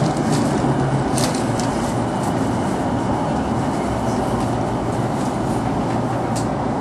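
Keihin-Tōhoku Line commuter train running along the track, heard from inside the carriage: a steady rumble of wheels on rail with a few sharp clicks, about a second in and again near the end.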